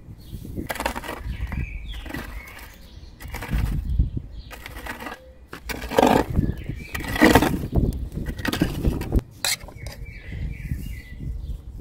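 Metal scraper on a wooden handle raking glowing embers across the floor of a wood-fired bread oven, in repeated rough scraping strokes that are loudest partway through. Birds chirp now and then.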